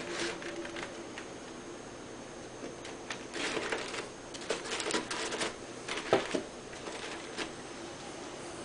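Folded cardstock and poster-board puzzle box being handled: scattered light clicks, taps and rustles of card against card, bunched in the middle seconds.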